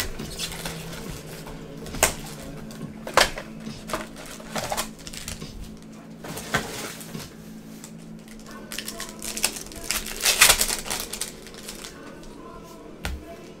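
Trading card boxes and packs handled on a table: several sharp taps and knocks of cardboard, then, about nine seconds in, a longer stretch of crackling as a plastic pack wrapper is handled.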